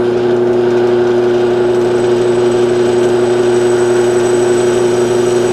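Benchtop drill press motor running at a steady speed with a steady two-note hum while its bit drills into a soft alloy mower deck spindle housing, the hole for a grease fitting.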